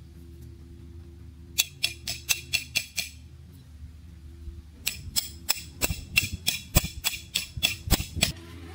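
Two quick runs of sharp clicks or taps, about four or five a second: a short run of about seven, then after a pause a longer run of about fifteen. Soft background music plays underneath.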